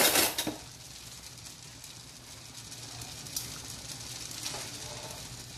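Shellfish broth boiling in an aluminium wok over a gas burner: a steady bubbling hiss with a few faint ticks. A short loud noise opens it as the ladle is lifted at the wok.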